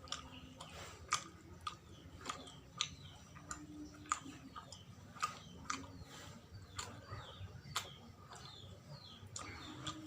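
Someone chewing sawella, a sticky cake of glutinous rice, coconut and palm sugar: irregular wet mouth clicks and smacks, several a second.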